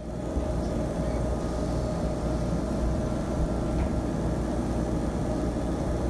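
A steady mechanical hum with a low rumble underneath, even in level throughout.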